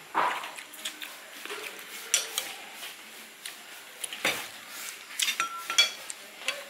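Cutlery clinking and tapping against plates and bowls while eating: irregular sharp clinks, a few ringing briefly.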